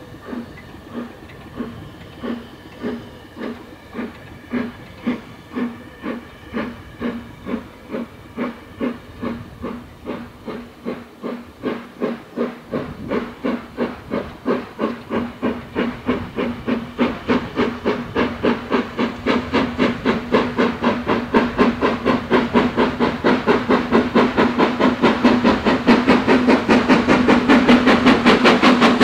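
Steam locomotive starting away under power, its exhaust chuffs quickening from slow, spaced beats to about four a second and growing steadily louder as it nears.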